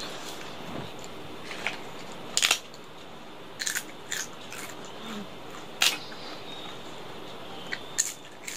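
Close-up eating sounds as a person chews handfuls of rice eaten by hand: several short, sharp mouth clicks and crunches at irregular intervals. The loudest come about two and a half seconds in and about six seconds in, over a steady background hiss.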